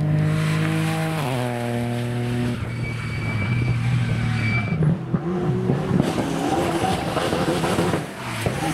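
Ford Fiesta rally car racing past at high revs, its engine note dropping in pitch about a second in as it goes by, then revving and fading as it pulls away. Near the end the sound cuts to another rally car's engine.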